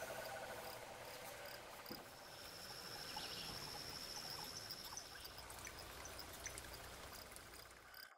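Faint chorus of frogs and insects. A pulsed, trilling call fades out in the first second, then a steady high whine holds for about three seconds, while short high chirps repeat throughout.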